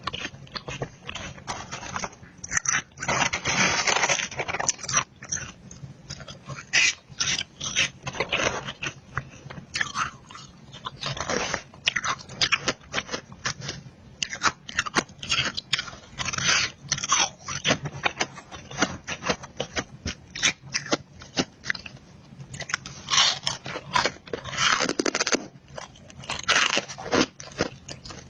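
Close-miked biting and chewing of powdery freezer frost: a dense run of irregular crunches and crackles.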